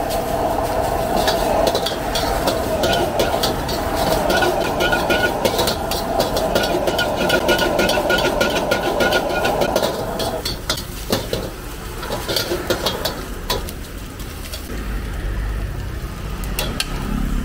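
Metal wok ladle scraping and clanking rapidly against a wok as fried rice is stir-fried and tossed over a gas wok burner, with food sizzling. About ten seconds in the steady burner noise falls away and the ladle strikes become sparser.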